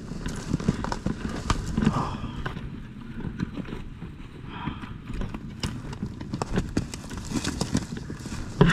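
Irregular footsteps and rustling of someone walking over rough ground, with scattered short knocks and no steady rhythm.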